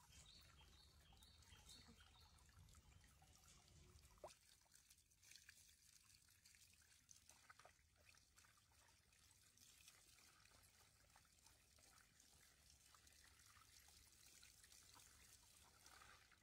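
Faint trickling, pouring water, with a few small ticks and splashes; otherwise near silence.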